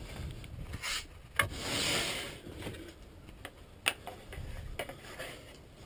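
A few light clicks and knocks from flat-pack bed parts being handled, with a brief scraping slide about a second and a half in.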